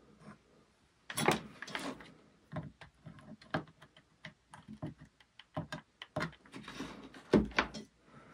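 Irregular handling clicks and knocks from a hot glue gun and the metal parts of an iMac lamp arm being moved about on a wooden workbench. There is a louder clatter about a second in and a heavier knock with a low thump near the end.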